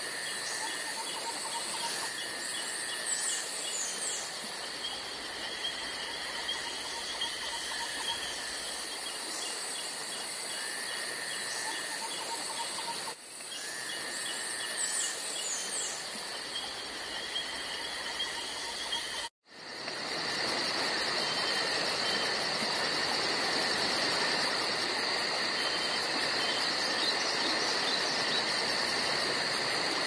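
Insect chorus with cricket-like trills: steady high-pitched trilling and repeated short chirps over an even hiss. About two-thirds of the way through it cuts out abruptly and comes back as a denser, steadier insect hiss with fast high ticking.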